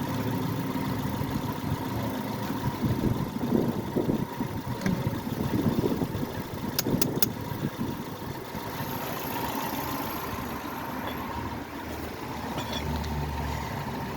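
Car engine idling steadily, with a few sharp clicks about seven seconds in.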